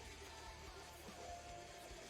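Faint background music with steady held tones and a low beat.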